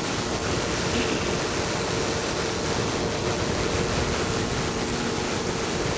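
Flex-wing microlight trike in climbing flight: a steady rush of wind and engine noise with a constant hum from the engine and propeller.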